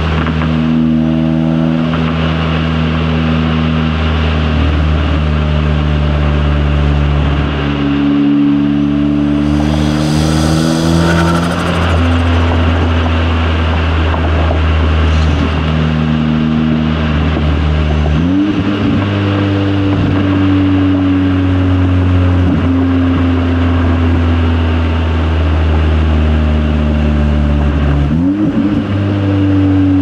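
Turbocharged 2.0-litre four-cylinder of a stage 2 Audi S3 8V with an Integrated Engineering cold air intake, pulling on the road with its pitch climbing and falling through several gear changes, including two sharp pitch jumps in the second half. A short rush of hiss about ten seconds in.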